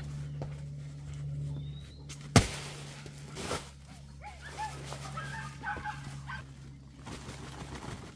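A heavy sack of crushed rock set down hard on a dirt ground with one loud thud about two and a half seconds in, followed by rustling of the sack; a few short, high animal cries follow, over a steady low hum.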